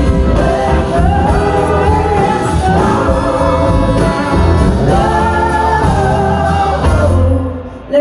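Live soul-blues band playing loudly: drums, bass and electric guitar under a female lead vocal with backing singers. About seven seconds in the band cuts out, leaving a brief hush.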